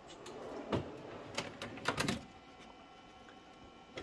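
Slide-out cabinet shelf being pushed in on its drawer slides: a rolling rumble over the first two seconds, broken by several clicks and knocks as it runs home.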